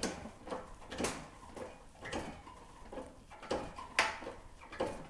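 A 10-ton hydraulic shop press being pumped by hand, bending a quarter-inch sheet-metal flange in a finger brake: a series of short clicks and creaks about twice a second, the sharpest about four seconds in.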